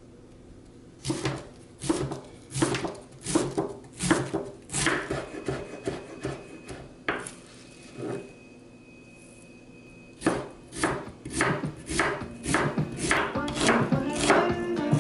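Chef's knife slicing through a cabbage half on a wooden cutting board: crisp crunching strokes that each end in a knock on the board, about one to two a second. After a short pause in the middle, quicker slicing resumes, moving on to a red onion near the end.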